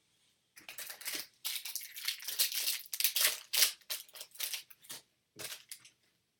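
Foil wrapper of a Bowman Chrome jumbo baseball card pack being torn open and crinkled: a dense run of crackling rustles lasting about five seconds.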